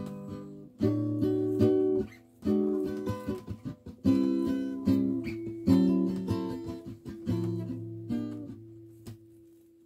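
Small-bodied acoustic guitar being picked: a short phrase of plucked chords and single notes, each ringing and dying away. The phrase ends on one note left ringing, which fades out over the last couple of seconds.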